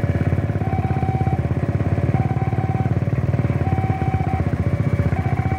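Motorcycle engine idling close by, with a railway level-crossing warning alarm sounding behind it: a two-tone signal switching back and forth between a higher and a lower pitch about once a second, warning that a train is approaching.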